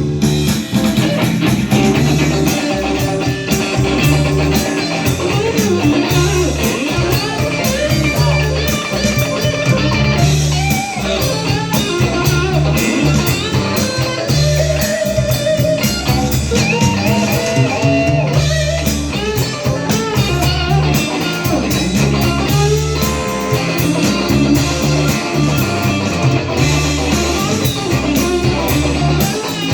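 A band playing an instrumental break with no singing: guitar lines over a rhythmic bass line and drum kit, in a blues-rock style.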